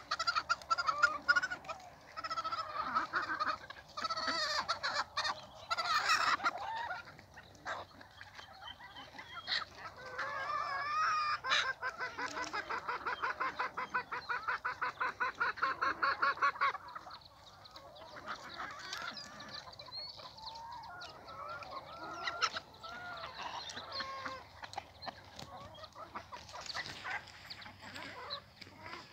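A flock of free-range chickens clucking and calling, overlapping calls throughout, with one long run of fast, evenly repeated clucks in the middle.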